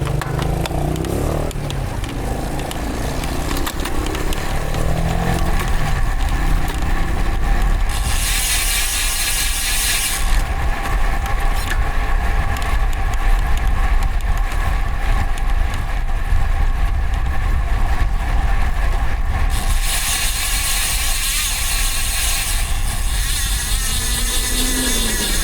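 Wind and road noise on a road bike's mounted camera microphone while riding, a steady low rumble, with two stretches of louder hiss, at about 8 seconds and 20 seconds in.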